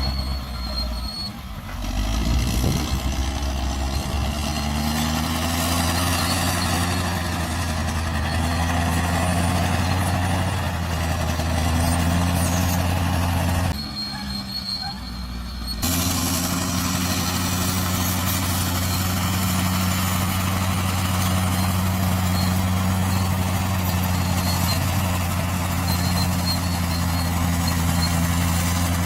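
Bulldozer's diesel engine running hard under load, its pitch rising and falling as it works, with a thin high metallic squeal near the start and again near the end. The sound drops briefly about halfway through.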